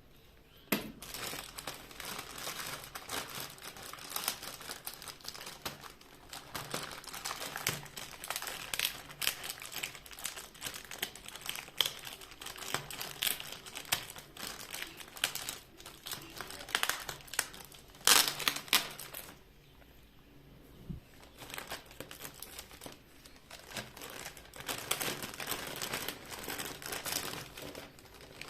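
Packaging crinkling and rustling as it is handled and pulled off a speaker during unboxing, in irregular bursts with a short pause about two-thirds of the way through.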